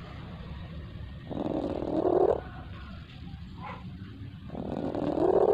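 A dozing domestic cat snoring, two slow noisy breaths about three seconds apart, each building up and then stopping abruptly.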